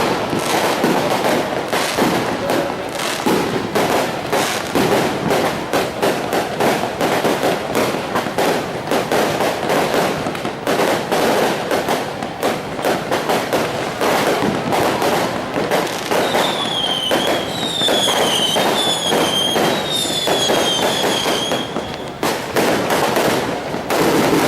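Fireworks and firecrackers going off in a dense, continuous crackling barrage of bangs. Past the middle comes a run of about five high whistles, each falling in pitch.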